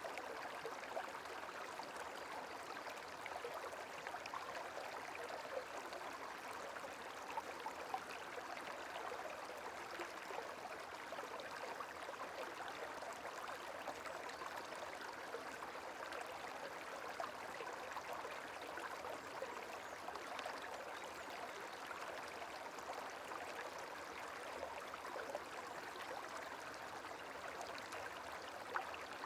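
Gentle running water, a steady soft trickle and babble with small flickers of splashing throughout.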